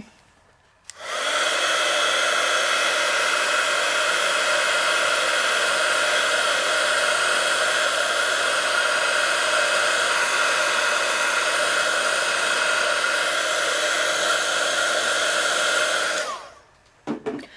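Handheld dryer blowing hot air steadily, a motor whine over rushing air, switched on about a second in and off near the end. It is drying the wet paint on a painted, gesso-primed teabag.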